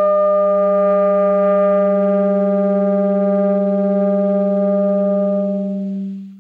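Alto saxophone holding one long low note, steady with a slight waver, fading out near the end.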